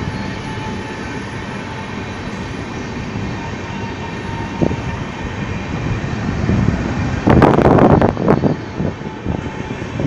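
Passenger coaches of an Indian Railways LHB train rolling past close by: a steady rumble and rattle of wheels on rail, with a louder burst of clatter about seven seconds in as the power van passes.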